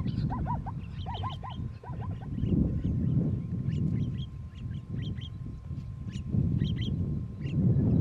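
Repeated short honking animal calls, in quick groups of three or four, during the first two seconds, then scattered shorter, higher calls. Low wind rumble on the microphone swells and fades under them.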